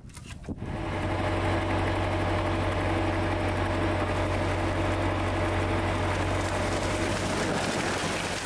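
A motor running steadily with a low hum, starting about a second in.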